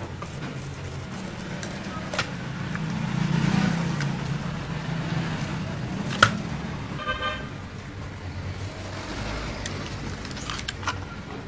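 A motor vehicle's engine running close by, swelling about three to four seconds in, with a short horn toot about seven seconds in. A few sharp knocks cut through, the loudest about six seconds in.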